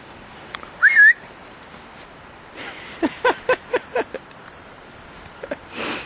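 A person whistles to call a dog: a short rising whistle about a second in, then a quick run of about six short pitched calls a couple of seconds later.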